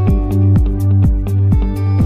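Background electronic music with a steady kick-drum beat about twice a second, hi-hat ticks and held synth and bass notes.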